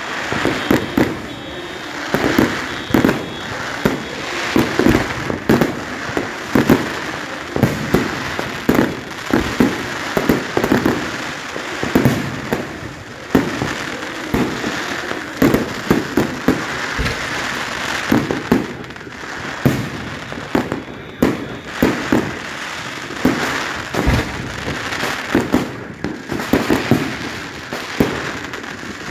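New Year fireworks going off without a break: aerial shells bursting in the sky, many overlapping bangs a second over a steady crackle.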